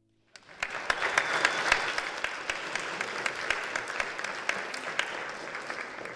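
Church congregation applauding, starting about half a second in and dying away near the end.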